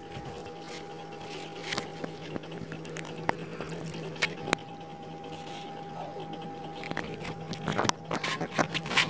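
Pot of hot water with chicken pieces on the stove: a faint steady hum with scattered small clicks and ticks, coming thicker near the end as more chicken goes into the pot.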